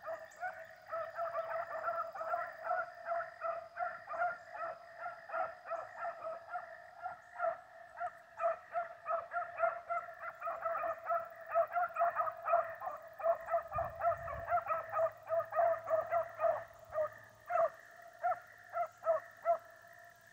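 A pack of beagles baying steadily in the distance, a continuous run of overlapping yelps several a second: the hounds are giving tongue on a rabbit's scent trail, running it.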